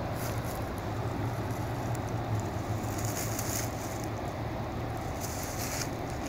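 Steady low rush of river water and wind on the microphone, with brief hissy rustles about three and five seconds in.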